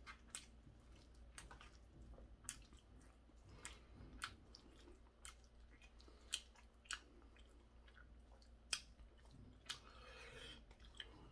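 Faint chewing of crunchy stir-fried pork cartilage, with irregular sharp crunches and clicks about once a second.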